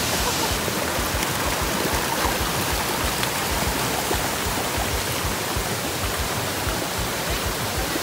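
Waterfall and a shallow rocky stream rushing: a steady, even sound of falling and running water.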